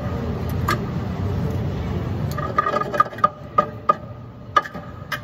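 Hand tools and steel suspension parts clinking under a car: a run of sharp metallic clicks, about three a second from a little past halfway, then two more near the end, over a steady low hum.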